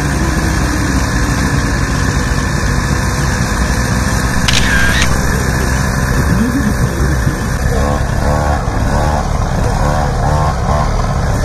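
Motorcycle engines idling in a steady rumble, with a brief high whine about halfway through.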